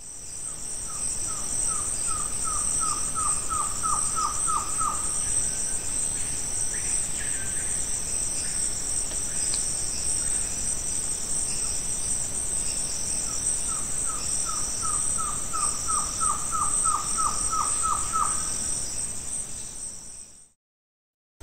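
Rainforest ambience: a steady, high-pitched insect drone runs throughout. Twice, a bird gives a series of a dozen or so short falling whistles that speed up and grow louder, then stop.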